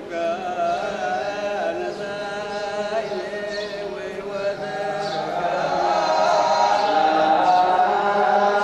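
Voices singing together in a chant-like song, growing louder about five seconds in.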